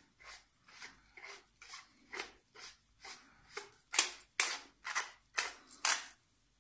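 Wooden pepper mill grinding black peppercorns: a run of short crunching strokes, one per twist, about two to three a second, faint at first and louder from about four seconds in.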